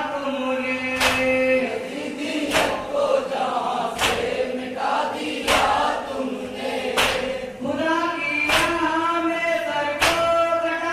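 A group of men chanting a Muharram noha in unison, punctuated by a sharp collective strike about every one and a half seconds, seven in all: the beat of matam, hands slapping chests in time with the lament.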